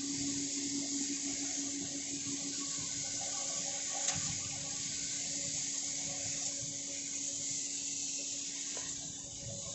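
Coffee roasting machine running: a steady rushing hiss over a constant low hum.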